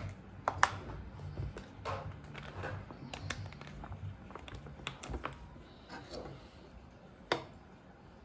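Eating sounds: scattered sharp clicks and taps of a spoon against a bowl, with softer mouth sounds of eating between them.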